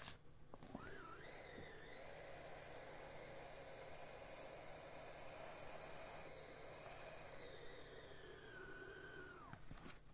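Air escaping through the open valve of a 1988 inflatable toy boat as it deflates: a faint hiss with a thin, wavering whistle. The whistle rises about a second in, then dips and breaks off near the end.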